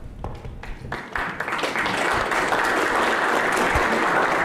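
Audience applause: a few scattered claps that swell about a second in into steady clapping from the whole room.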